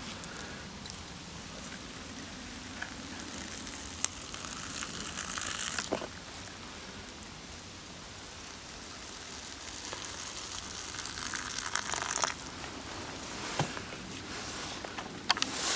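Hot water being poured from a Jetboil stove's cooking cup into paper instant-noodle cups, with two louder stretches of pouring and a few light knocks.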